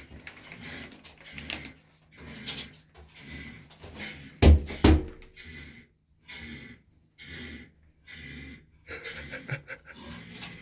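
Noises from an unseen animal under a bathtub: a run of short breathy sounds, roughly one a second, like the snoring and breathing the person has been hearing. Two loud thumps come about halfway through.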